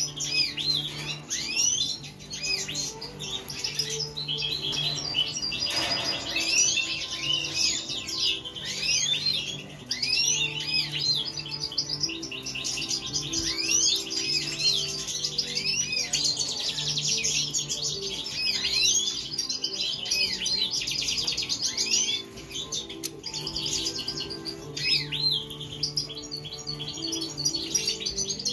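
European goldfinches twittering and singing non-stop: a busy stream of quick, high, tinkling chirps and trills. A low steady hum-like tone sits underneath, dropping out now and then.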